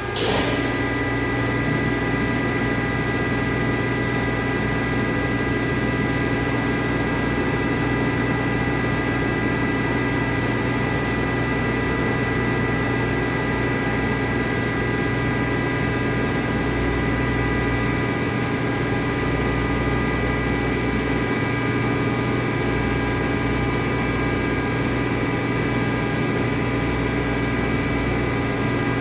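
Omax abrasive waterjet cutter running: its high-pressure pump drones steadily with several steady tones under the hiss of the jet cutting at the nozzle. A short, sharp burst of hiss comes right at the start.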